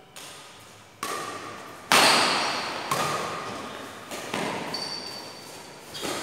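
Badminton rackets striking the shuttlecock in a rally, five sharp hits about a second apart. Each hit rings on in the echo of a large hall. The hit about two seconds in is the loudest.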